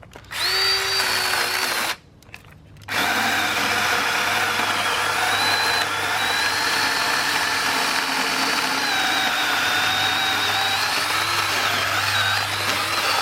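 Battery-powered chainsaw lopper running: a short burst of about two seconds, a pause of about a second, then a long steady run as it cuts through a branch, its high whine dipping slightly in pitch under load.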